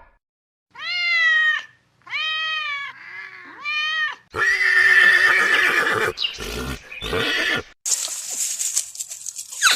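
A string of different animal calls: four short, arched, pitched cries in the first four seconds, then a louder, rougher call, and a hissing noise over the last two seconds.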